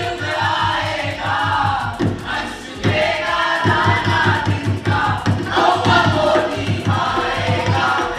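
Music played loud through a hall's PA speakers: a song with group singing over a steady low beat.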